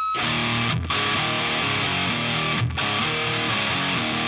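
Background music: rock with distorted electric guitar, broken by two brief stops.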